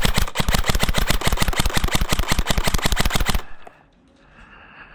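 Airsoft rifle firing one long full-auto burst, a fast even rattle of about fifteen shots a second that stops about three and a half seconds in.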